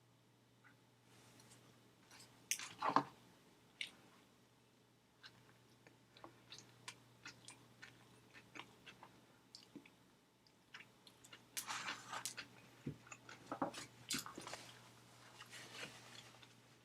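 A person chewing and biting food close to the microphone: scattered small mouth clicks and crackles, the loudest bite about three seconds in, with busier stretches of chewing later on.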